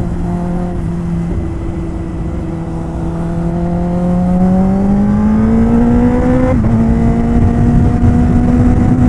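Kawasaki Ninja ZX-10R's inline-four engine under way, running steady, then pulling up in pitch for about three seconds. A quick break about two-thirds of the way through marks an upshift, after which it runs steady at a higher pitch.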